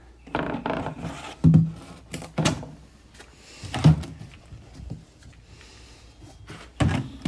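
Empty plastic laundry detergent jugs being handled and set down on a concrete floor: several separate knocks and thumps, about six, spread over the seconds.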